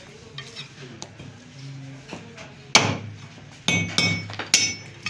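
Heavy meat cleaver chopping mutton on a wooden chopping block: a quiet start, then about five sharp chops in the second half, each with a short ring.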